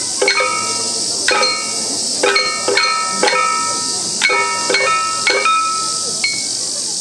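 Handheld percussion struck by the nembutsu dancers in an uneven rhythm of about ten strokes, each stroke ringing briefly with a metallic tone, over a steady high drone of cicadas.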